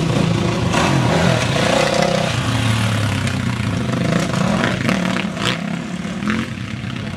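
Off-road dirt bike engines running and revving as the bikes climb over log obstacles, the pitch rising and falling with the throttle. A few sharp knocks come in the second half.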